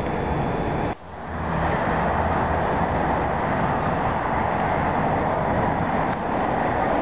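Steady street traffic noise with no speech, briefly dropping out about a second in.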